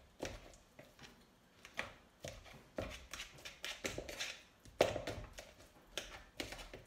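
Fork mashing salted avocado in a bowl: irregular soft taps and scrapes of the fork against the bowl as the flesh is crushed, the loudest tap a little under five seconds in.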